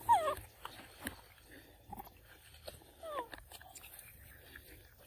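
Young macaque giving two short high calls, the first falling in pitch right at the start and the second about three seconds in, over soft clicking and smacking of monkeys biting and chewing mango.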